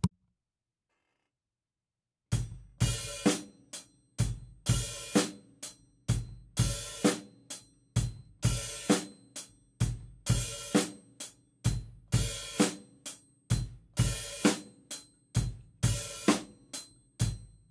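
Acoustic drum kit playing a steady beat, starting about two seconds in. It has closed hi-hat eighth notes and bass drum, and the hi-hat is opened on the and of 1 and the and of 3, so its open 'bark' sounds together with a bass drum hit.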